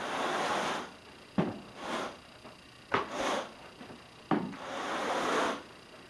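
Grandi Groom carpet rake dragged through carpet pile in repeated raspy swishing strokes, with three sharp taps, each just before a stroke, the longest stroke near the end.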